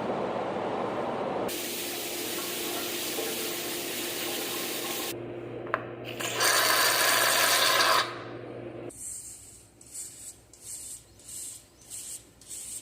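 Running water spraying and splashing, with a steady low hum for a few seconds and the loudest gush near the middle. The water stops about nine seconds in, and a soft rhythmic scrubbing or rubbing follows, about two strokes a second.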